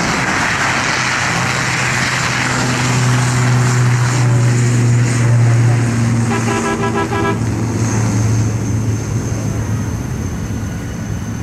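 Aircraft engines running with a steady low drone and a hiss that swells and then eases, a thin high whine coming in near the end. A quick run of beeps sounds about two-thirds of the way through.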